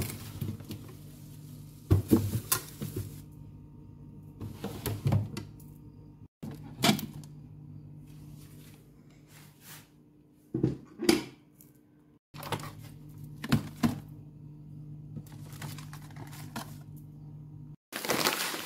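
Scattered knocks, clunks and clatters of groceries and dishes being handled and put away, with plates set down and items pushed onto fridge shelves, over a steady low hum.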